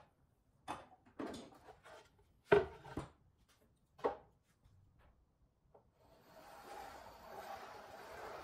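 Knocks and clatters of a steel square, compass and MDF discs handled on a wooden workbench, the loudest about two and a half seconds in. From about six seconds in, a steady scratchy rubbing as a compass pencil scribes a circle on an MDF disc.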